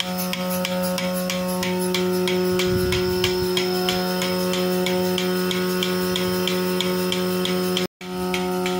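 Oil-lubricated electric monoblock vacuum pump of a single-can milking machine running: a steady motor hum, with a fast, even ticking of about four a second over it. The sound cuts out for an instant near the end, then resumes.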